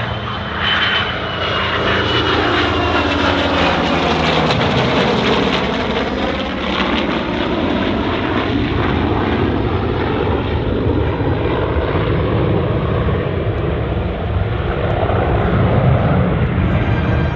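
Aircraft engine noise from an F-22 Raptor and an A-1 Skyraider flying together in a heritage-flight formation pass. The sound is steady and loud, and a sweeping shift in pitch runs through the first half as the formation goes by.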